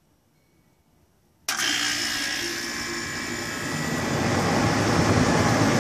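Heat pump outdoor unit kicking on: its compressor and condenser fan start suddenly about a second and a half in and run with a loud, steady whir that grows a little louder toward the end.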